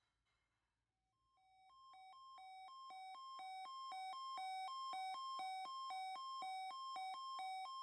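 Weather radio receiver's alert alarm going off for the required weekly test: an electronic two-tone beeping that alternates a low and a high pitch about twice a second, starting about a second in and growing steadily louder over the next few seconds.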